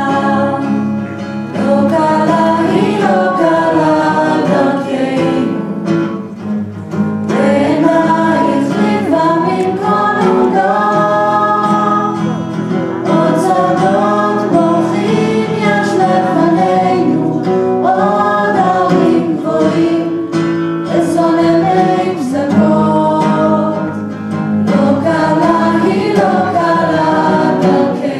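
Mixed youth choir of boys and girls singing a song, with guitar accompaniment.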